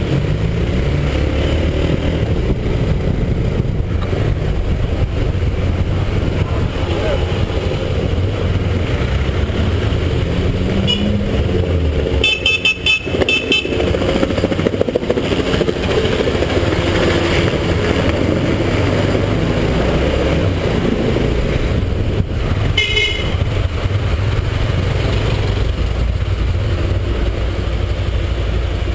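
Honda CBX 250 Twister single-cylinder motorcycle riding in city traffic, heard from the pillion's helmet: steady engine running under low wind rumble, with street traffic around. A vehicle horn sounds a quick series of short toots about twelve seconds in, and again briefly about twenty-two seconds in.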